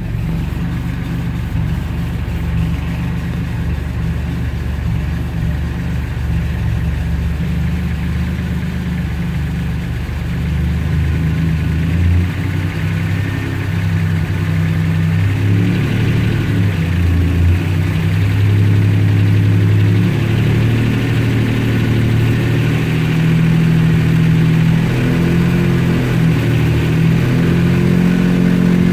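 Turbocharged GM 60-degree V6 in a Chevy C1500 running, its pitch stepping up and down several times as the truck is run in gear on the hoist with the newly installed 4L60E automatic transmission.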